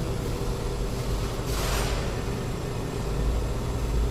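A steady low mechanical rumble, like a vehicle engine running, with a short hiss about one and a half seconds in.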